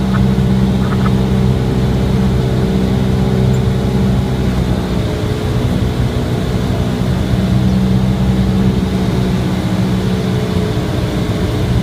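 Cessna 172R's four-cylinder Lycoming engine and propeller running with a steady drone, heard from inside the cabin.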